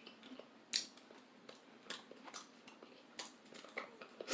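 Quiet close-up eating sounds: chewing and mouth clicks of someone eating seafood, with a few sharp clicks scattered through.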